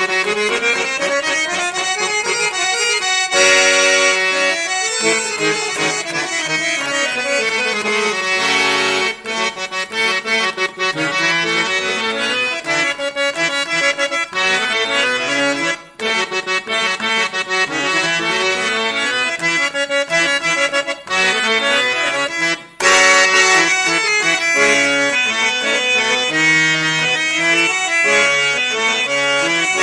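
Harmonium reeds playing chords and melody. A run of notes climbs in the first three seconds and another falls a few seconds later, with short breaks about 3, 16 and 23 seconds in.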